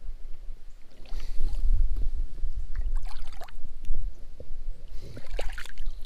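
Shallow creek water sloshing and splashing in three bursts, the loudest near the end as a rock bass is released by hand into the water, over a low rumble.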